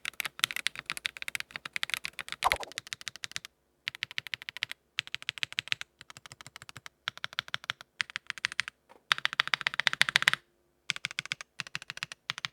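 Mechanical keyboard fitted with lightly factory-lubed Leobog Graywood V3 linear switches being typed on in fast runs of keystrokes, in several short takes broken by abrupt cuts to silence. The reviewer hears them as more clack than thock.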